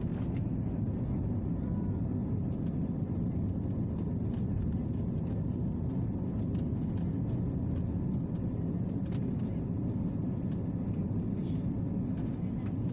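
Steady low drone of an airliner cabin in flight, engine and air noise with no change in pitch, with a few faint ticks over it.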